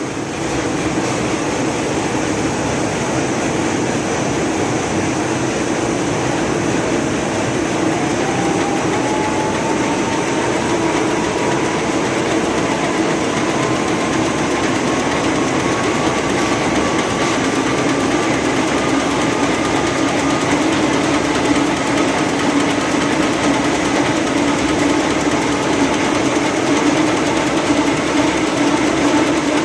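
Horizontal double-deck paper napkin making machine with printing unit running at high speed: a steady, dense mechanical whir and clatter. A thin whine climbs slowly in pitch through the first two-thirds, then holds.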